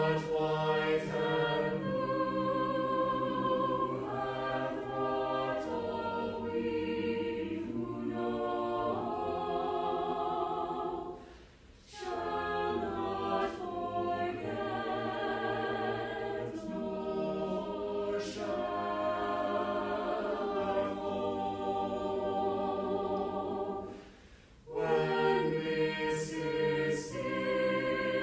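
Background music: a choir singing sustained, wavering chords, with two brief pauses between phrases.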